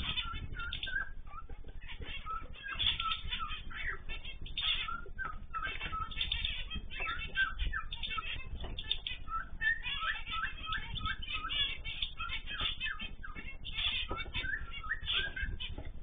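A mixed aviary of canaries, goldfinches and zebra finches chirping and calling, with many short calls overlapping without a break. Now and then there is a flutter of wings.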